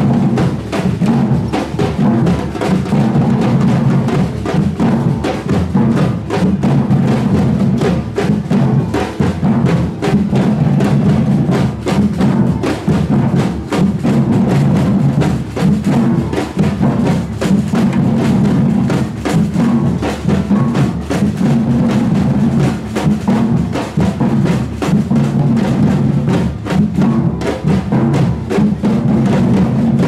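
A street drum band of many silver surdo-style bass drums and smaller drums, played with mallets and sticks in a steady, driving samba-style rhythm of deep beats under dense, rapid stick hits.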